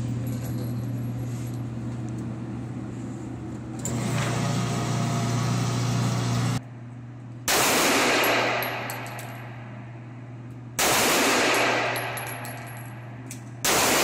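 Three pistol shots about three seconds apart, each a sharp blast that rings on for about a second in the range's reverberant booth. A steady low hum lies under the first half.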